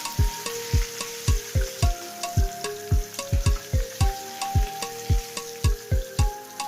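Red bream sizzling as it fries in hot oil, under background music with a steady deep drum beat and a simple melody; the drum beat is the loudest part.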